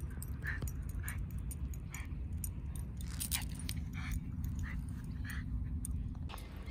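Small dog's collar tags jingling in quick light clicks as it trots about, over a steady low background rumble, with short high notes repeating about once a second.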